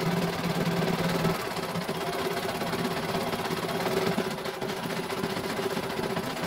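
CNY E900 computerized embroidery machine stitching a design: the needle runs fast and steady over the machine's motor hum, with a lower hum that drops away about a second in.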